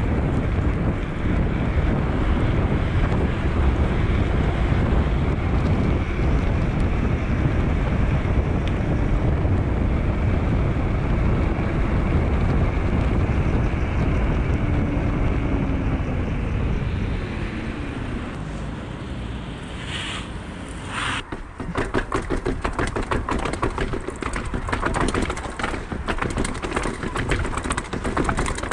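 Wind rushing over an action camera's microphone, with tyre and ride noise from a Rockrider 560 S mountain bike moving at speed. About three quarters of the way through, the rushing eases and gives way to a fast, uneven ticking rattle from the bike.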